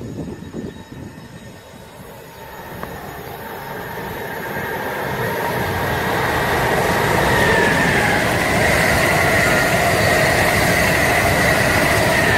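Amtrak Acela Express electric trainset approaching out of a tunnel and running past at speed. Its rushing rail noise builds for the first several seconds, then holds loud and steady with a high whine.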